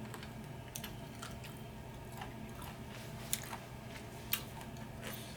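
Close-up chewing and biting of bone-in chicken wings, with scattered short wet mouth clicks, two sharper ones past the middle.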